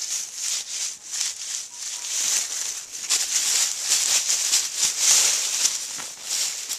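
Dry fallen leaves and pine needles rustling and crackling as they are disturbed, a dense run of quick crisp crackles throughout.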